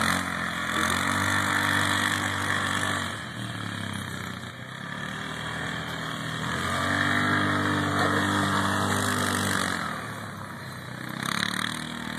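Quad (ATV) engine towing a plastic paddle boat over grass, revving up and easing off twice, its pitch rising and falling with each pull.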